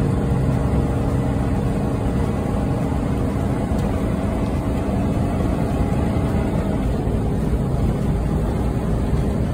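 Steady engine drone and road noise inside the cab of a large vehicle, such as a bus or motorhome, cruising at highway speed.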